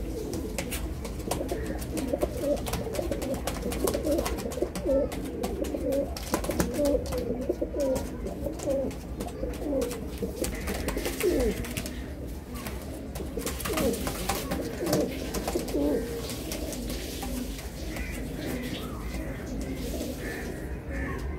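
Several Galwa pigeons cooing, many short coos that rise and fall in pitch and overlap one another, busiest in the first three quarters and thinning out towards the end. Scattered light clicks and a low steady hum lie underneath.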